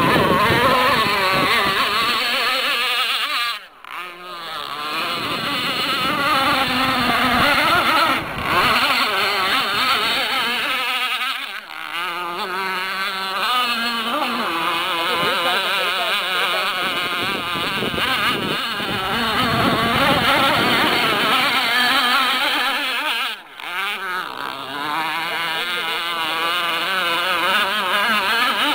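Radio-controlled speedboat's engine running at high revs, its pitch wavering up and down as it races across the water. The sound drops out briefly three times.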